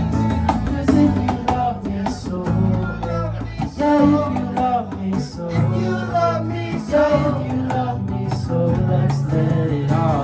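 Live band playing a song, with guitar and bass under a melodic line.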